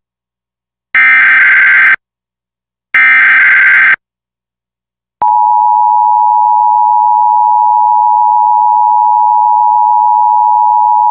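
Emergency Alert System SAME header: the last two of its three raspy data bursts, each about a second long with a second's gap between them. About five seconds in, the steady two-tone EAS attention signal begins and holds.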